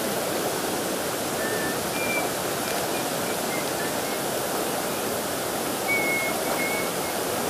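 Shallow river running over rocks and around the wader's legs: a steady rush of flowing water, with a few faint short high chirps.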